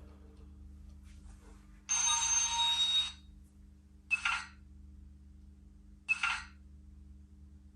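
Train Tech SFX80 sound capsule's small speaker playing recorded Mk2 slam-door passenger coach sounds: a burst about a second long starting about two seconds in, then two short, sudden sounds about four and six seconds in.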